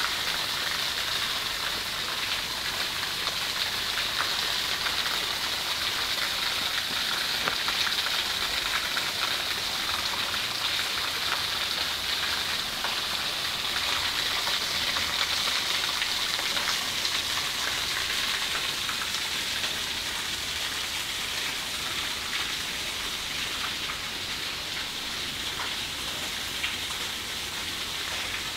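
Running water from a shallow stone-lined channel: a steady rush with fine splashing and trickling throughout.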